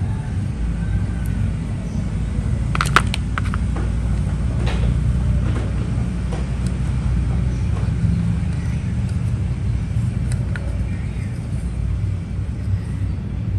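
A steady low rumble, with a quick cluster of sharp clicks about three seconds in and a few fainter ticks later, from hard plastic toy figures being handled.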